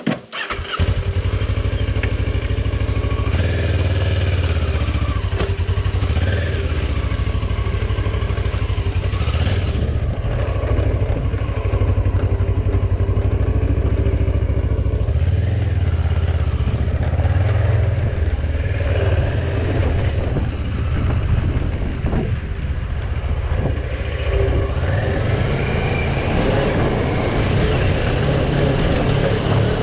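Kawasaki Versys 650 parallel-twin engine running under load as the bike is ridden off-road, with the revs rising and falling. The sound grows loud about half a second in and stays loud throughout.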